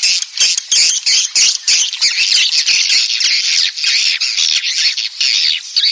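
Recorded swiftlet calls of the kind played as a lure for swiftlet farming: a dense, unbroken twittering of high-pitched chirps, several each second.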